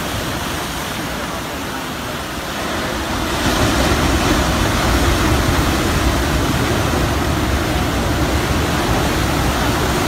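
Heavy surf of 1–2 m waves breaking and washing up the beach: a steady rush of noise that grows louder about three and a half seconds in.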